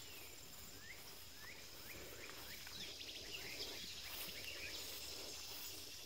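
Faint outdoor ambience: small birds chirping in short, rising notes over a steady, high insect drone.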